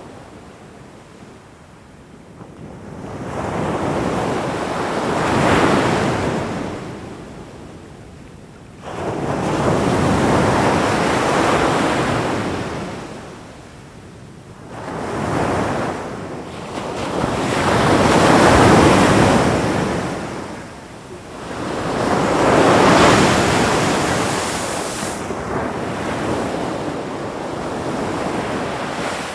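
Ocean waves breaking and washing in: loud surges of surf that swell and die back every four to six seconds, with short lulls between them.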